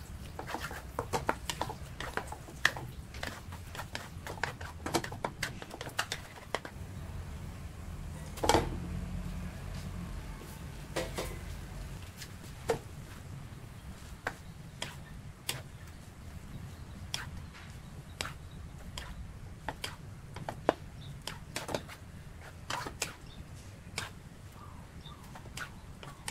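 Wooden spatula scraping and tapping against a nonstick wok while stir-frying instant noodles with pork and egg: irregular clicks and knocks throughout, a louder knock about eight and a half seconds in, over a low steady hum.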